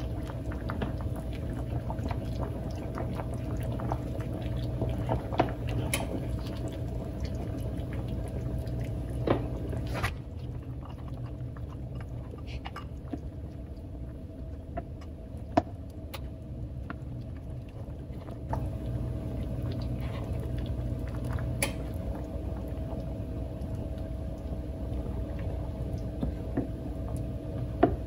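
Pot of chicken noodle soup simmering on an electric stovetop with fine crackly bubbling, while a ladle stirs it and knocks against the pot a few times. A steady low hum runs underneath.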